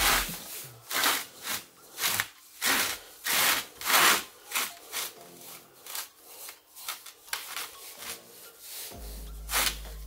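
Rhythmic scraping strokes of an applicator rubbing paint onto the inside of a terracotta clay pot, about one stroke every two-thirds of a second, louder in the first half and lighter later.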